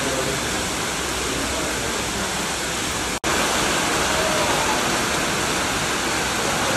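Hail-laden floodwater rushing and pouring, a steady loud wash of water. It cuts out for an instant about three seconds in and comes back slightly louder.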